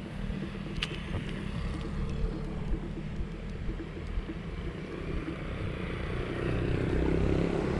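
Low, steady engine hum of motorcycle traffic on the road alongside, growing louder near the end as one comes closer. A single sharp click about a second in.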